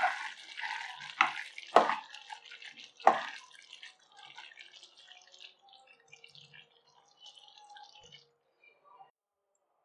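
A spatula stirring thick chicken tikka masala gravy in a pan: wet, squelching strokes, four of them loud in the first three seconds, then softer wet sounds that die away about two seconds before the end.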